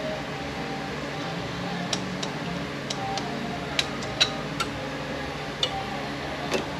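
Scattered light metallic clicks and clinks from parts of a 9T65 automatic transmission being handled and set down during teardown, about eight in all, over a steady low shop hum.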